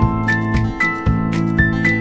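Instrumental background music with a steady beat and held melody notes.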